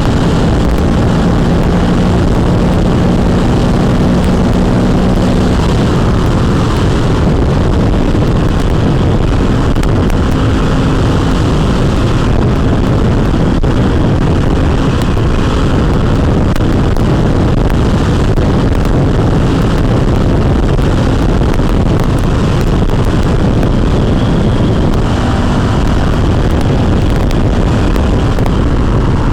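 Honda CRF450L's single-cylinder four-stroke engine running under way at road speed, heavily mixed with wind rushing over the microphone. The engine note holds a steady pitch for the first few seconds, then sinks into the wind.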